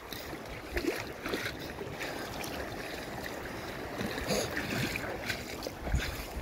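Wind on the microphone and shallow seawater lapping among rocks on a reef flat, with scattered light clicks.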